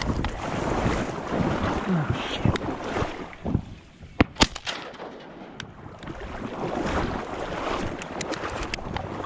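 Wind buffeting the microphone, with two sharp clicks close together a little over four seconds in and a few fainter clicks later.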